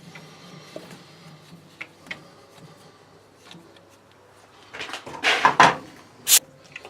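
Metal tools and workpieces being handled on a workbench: a few light clicks, then a loud rattling and scraping clatter about five seconds in, ending in one sharp metallic knock.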